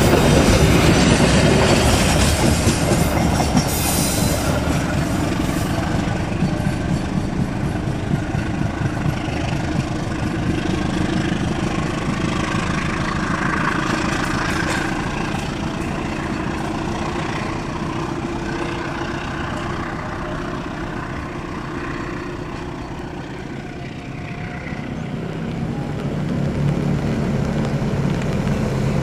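A diesel-hauled passenger train's coaches rush past with loud wheel noise on the rails, fading steadily as the train pulls away. Near the end a low, steady engine drone rises as a CC 201 diesel locomotive approaches.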